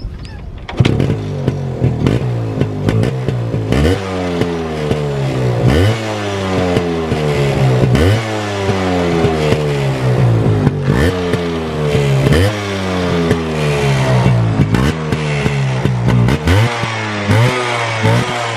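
Yamaha RX135 two-stroke single-cylinder motorcycle engine running through its stock catalytic-converter silencer with the muffler insert fitted. It idles, with repeated quick throttle blips, each a sharp rise in pitch that falls back, about every one to two seconds.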